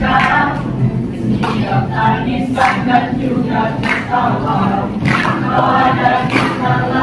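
Mixed school choir of boys and girls singing together, accompanied by an acoustic guitar.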